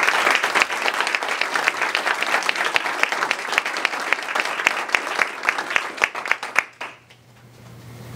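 Audience applauding: many people clapping, the claps thinning out and stopping about seven seconds in.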